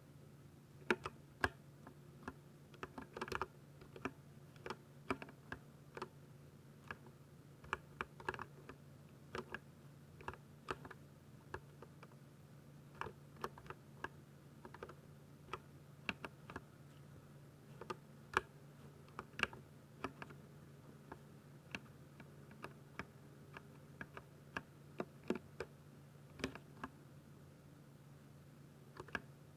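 Typing on a Ducky 60% mechanical keyboard with silver linear switches: an irregular run of keystroke clacks, a few a second with short pauses. A faint steady low hum sits under it.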